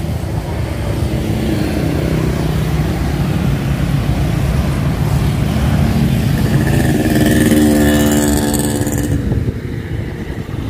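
Road traffic: a steady engine rumble throughout, with a motorcycle passing close about seven to nine seconds in, its engine note rising in loudness and then fading.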